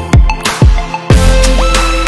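Electronic background music: a beat of deep bass-drum hits that drop in pitch, under held synth notes.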